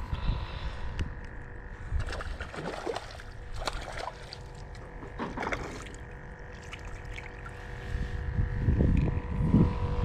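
Wind buffeting and clothing rubbing against a body-worn camera's microphone, with a faint steady hum underneath; the rumbling grows louder near the end as a fish is landed.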